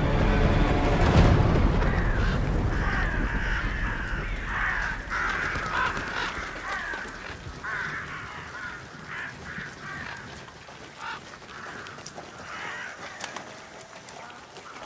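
Crows cawing over and over, harsh calls following one another, over a low rumble that fades out in the first couple of seconds.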